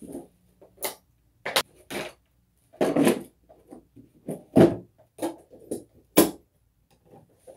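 Supplies clattering and knocking as they are packed into a hard plastic tool box, then the lid is pushed shut and latched, with several sharp snaps and knocks, the loudest about four and a half and six seconds in.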